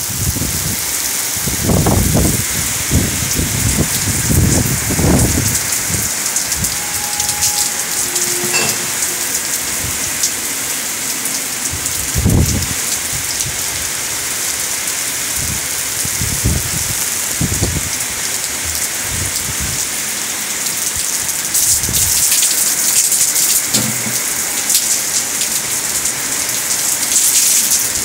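Steady rain falling on concrete and open ground, a constant hiss of drops. Several low rumbles come and go, mostly in the first half.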